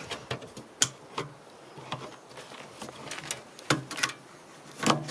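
Ikea kitchen drawer being assembled and fitted: a series of sharp clicks and knocks at uneven intervals. The sharpest comes a little under a second in.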